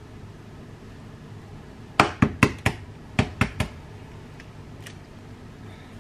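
Quick, hard knocks of kitchenware on the counter, four in a row and then three more, with two faint ticks after.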